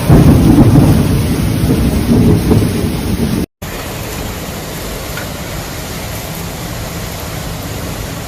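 Severe thunderstorm: a loud low rumble of wind and thunder for about three and a half seconds, then, after an abrupt cut, a steady hiss of heavy rain and wind.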